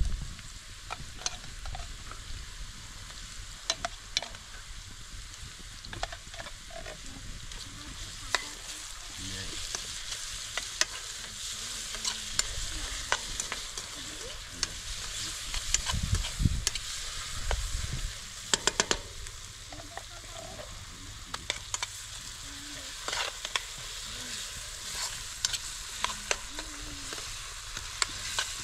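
Potatoes, peppers and tomatoes frying in oil in a pan over a wood fire, sizzling steadily, with the sizzle swelling around the middle. Scattered sharp clicks and scrapes come from a spoon stirring the pan.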